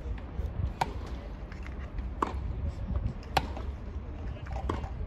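Tennis balls struck by rackets in a baseline rally on a grass court: four sharp pops about a second and a half apart, over a steady low rumble.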